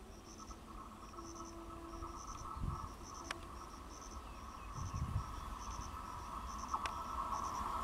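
Insects, cricket-like, chirping in short, evenly repeated trills over the steady whine and low rumble of an approaching EMU electric train, which grows louder toward the end. There are a couple of low thuds along the way.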